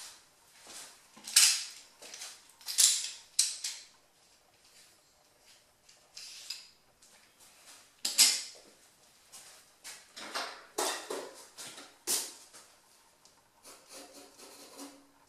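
Wooden graphite pencil scratching on drawing paper in quick, separate sketching strokes, some louder and longer than others.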